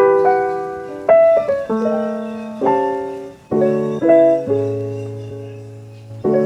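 Background music: solo piano chords, each struck and left to ring and fade, about one every second or so.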